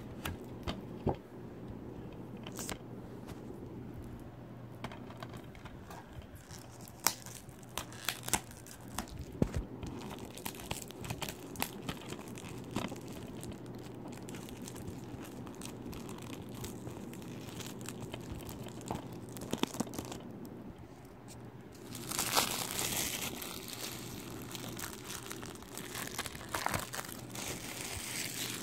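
Crinkly plastic wrapping being handled: scattered crackles and clicks, with a louder stretch of crinkling and tearing about two-thirds of the way through.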